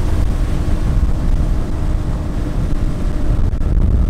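Evinrude 250 two-stroke outboard running the bass boat at speed: a steady, loud, low rumble with a faint steady hum that fades near the end.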